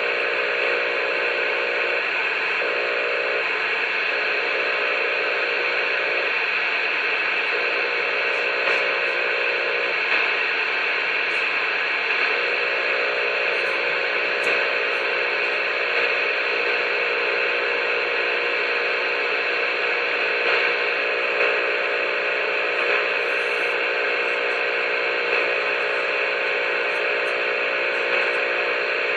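Steady CB radio static hiss with a faint underlying hum, the channel open and nobody transmitting.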